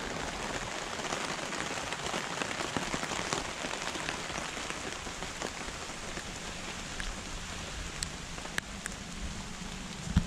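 Steady rain falling on trees and leaf litter, with a few sharp ticks about eight seconds in. A low engine hum comes in over the last few seconds.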